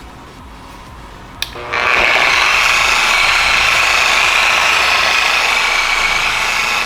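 Electric polisher with a foam polishing pad switching on after a click and running steadily at its lowest speed, buffing polish on a plastic headlight lens.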